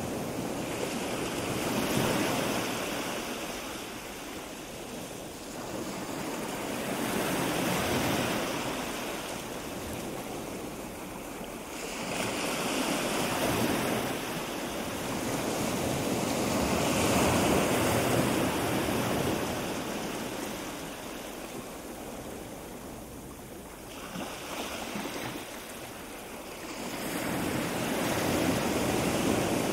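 Wind gusting across the camera microphone, a rushing noise that rises and falls in slow swells every few seconds.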